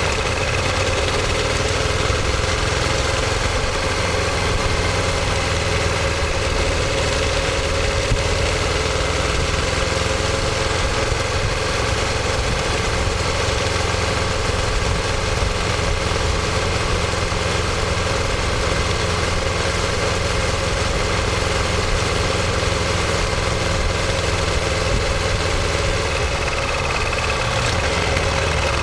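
Ducati Monster 1200S's L-twin engine running steadily, its exhaust note held at an even pitch with no revving.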